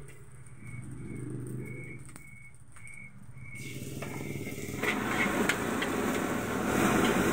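Fried rice sizzling in a steel wok over a gas burner that hums steadily. About five seconds in the frying gets much louder as a metal spatula starts stirring, scraping and clinking against the wok.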